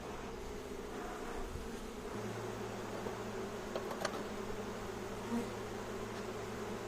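Honeybees buzzing in a steady hum around an open hive during an inspection, with a couple of light clicks near the middle.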